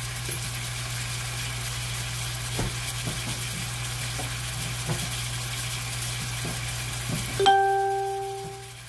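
Green beans and butter sizzling in a stainless steel skillet, a steady hiss with a few faint clicks. About seven and a half seconds in, a metal clank rings out for about a second and the sizzle drops away.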